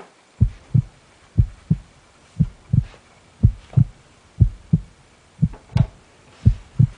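Heartbeat sound effect: paired low thumps, lub-dub, about once a second, starting about half a second in.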